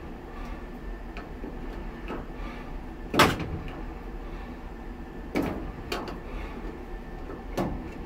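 Sharp clicks and knocks of a screwdriver prying at a part on a clothes dryer's sheet-metal front frame: four in all, the loudest about three seconds in, two close together a little past five seconds, and one near the end.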